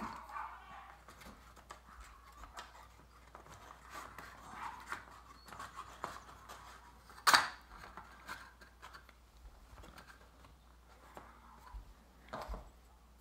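Light handling noises of a wooden and cardboard game kit being fitted together: scattered small taps and clicks, with one sharp knock about seven seconds in.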